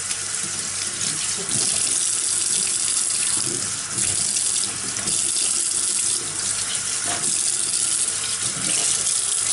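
Kitchen tap running full into a stainless steel sink while a cloth is rinsed in the stream, the splashing changing as the cloth is moved in and out of the water.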